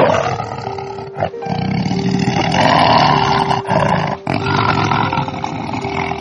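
A large wild animal roaring in long, rough calls broken by a few short pauses, over soft music.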